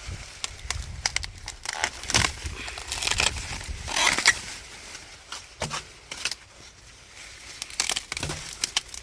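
Dry corn leaves and husks rustling and crackling as the plants are handled, with several sharp, irregular crunches and snaps.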